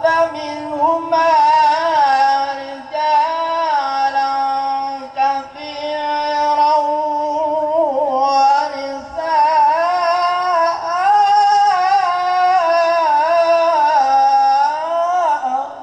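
A man's solo voice chanting a melodic religious recitation into a microphone over a sound system, in long held phrases with wavering ornaments, broken briefly about five and eight seconds in.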